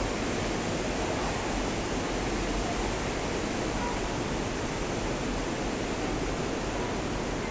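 Sewer water rushing steadily through the channel beneath a grated tunnel floor, an even noise that holds at one level throughout.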